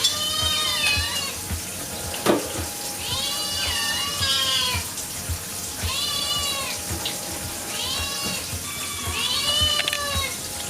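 Hungry kittens meowing over and over, begging for food: about five drawn-out meows, each about a second long, with a sharp knock about two seconds in.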